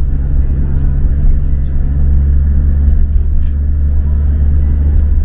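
Volkswagen Kombi van driving along the road, heard from inside the cabin: a steady, loud low rumble of engine and road noise.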